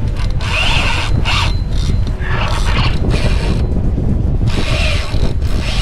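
Spinning fishing reel working under the load of a hooked shark, in repeated short spells of ratcheting mechanical noise, with a steady low rumble of wind underneath.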